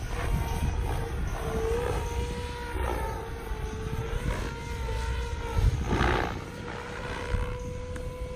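SAB Goblin Black Thunder electric RC helicopter in flight: a steady whine from its motor and rotor head that wavers slightly in pitch, over a low rumble. A louder rushing swell comes about six seconds in.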